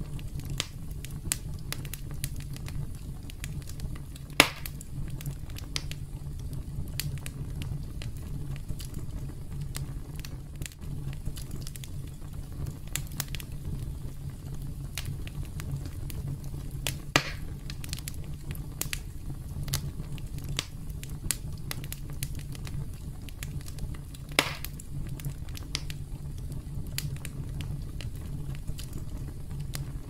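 Campfire crackling: irregular small crackles over a low, steady rumble of burning, with three louder sharp pops spread through.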